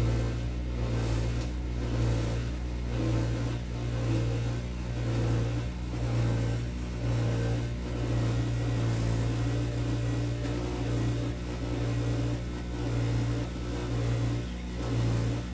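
Rheem gas tankless water heater running with the hot water on, making a loud low droning hum that swells and dips at an even pace, a little faster than once a second. It is an abnormal noise whose cause the owner does not know.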